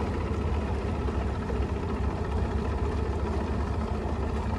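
Bass boat's outboard motor idling at slow speed: a steady low drone that does not change.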